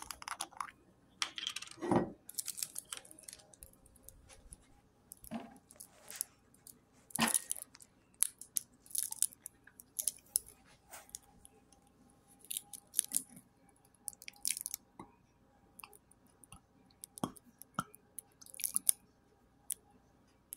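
Scattered rustles, clicks and knocks of kitchen items being handled on a countertop, with thick barbecue sauce being scooped into a glass measuring cup near the end. The loudest is a single knock about two seconds in.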